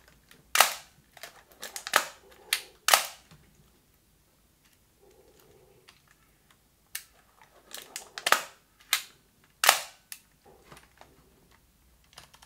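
Nikon F3 35mm SLR being cocked with its wind-on lever and its titanium-foil focal-plane shutter fired, with the multiple-exposure lever set so the film does not advance. It is a run of sharp mechanical clicks in two groups, with a pause of a few seconds between them.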